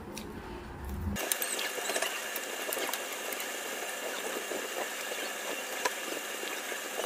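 Eating sounds of fried chicken being chewed and picked off the bone, small clicks and smacks, under a steady high-pitched whine and hiss that starts abruptly about a second in.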